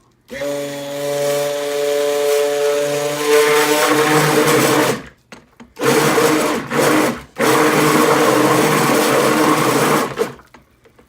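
KitchenAid stick blender mixing cold-process soap batter of oils and lye solution, run in three bursts: about five seconds, then a brief pulse, then about three seconds more.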